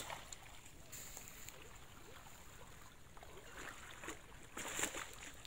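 Quiet background, then a few short splashes and sloshes of shallow water from about three and a half seconds in, the loudest near the end, as someone moves in the water at the bank's edge.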